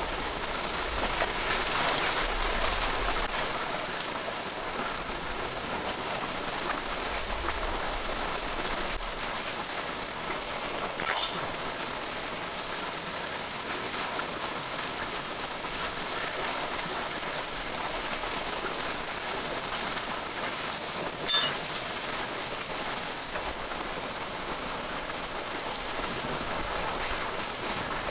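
Steady rain falling, an even hiss, with two sharp clicks about ten seconds apart.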